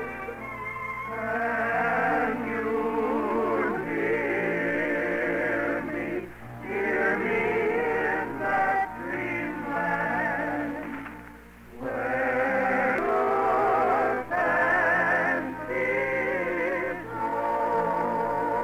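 Singing with vibrato over orchestral accompaniment, in phrases with short breaks about six and eleven seconds in. It sounds like an old narrow-band radio recording.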